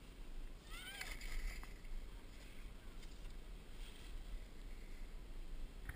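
Skis hissing and scraping over chopped-up piste snow as the skier slides along, with a low wind rumble on the microphone. A brief high-pitched voice calls out about a second in.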